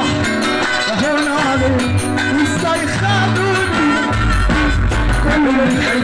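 Loud amplified live Egyptian sha'bi music: a male singer on a microphone over an electronic keyboard, frame drum and a heavy, pulsing bass.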